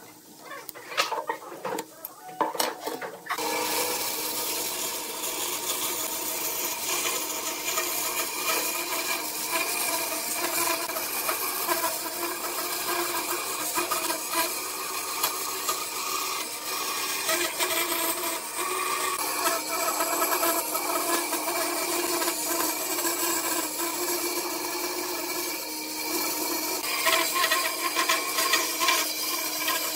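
Light scratching for about three seconds, then a bandsaw starts sounding steadily as its blade cuts a curve through a thick wooden board, a constant motor hum under the rasping of the cut.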